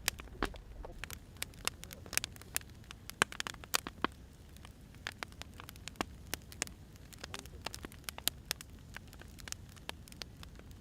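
Burning firewood crackling, with irregular sharp pops and snaps over a low, steady rushing of the flames.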